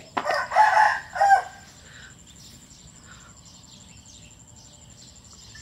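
A rooster crowing once, starting just after the beginning and lasting about a second and a half, in two parts. Faint high chirping follows in the background.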